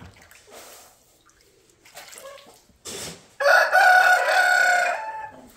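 Rooster crowing once, about three and a half seconds in: one loud call of about a second and a half that tails off at the end. Soft rustles and knocks come before it.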